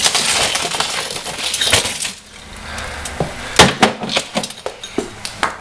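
Golf club smashing a television: glass shattering and shards clinking, with a string of sharp hits, the loudest about three and a half seconds in.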